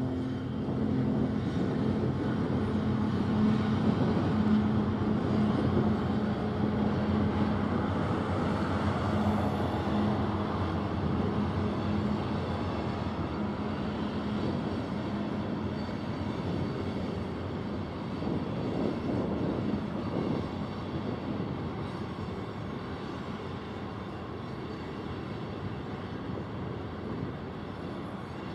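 Union Pacific diesel locomotive crossing a steel girder railroad bridge, its engine running with a steady low hum that fades over the first few seconds. Then a continuous rumble and clatter of open-top hopper cars rolling across the bridge.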